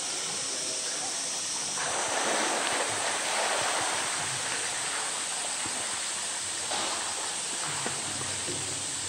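Water splashing and streaming off a polar bear as it hauls itself out of its pool, loudest for a second or two shortly after the start, over a steady rush of background water.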